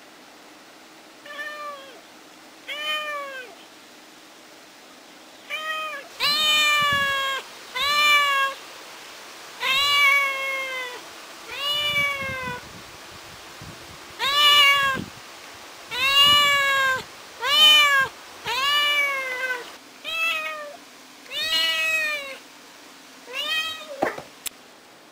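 Ginger kitten meowing over and over, about fourteen meows that each rise and then fall in pitch, softer at first and louder after the first few: crying and calling while left alone at home. A sharp click near the end.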